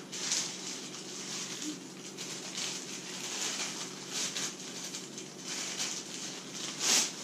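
Nylon rustling from a tent's stuff sack and fabric as a bundle of tent poles is pulled out and handled: irregular rustles, the loudest just before the end.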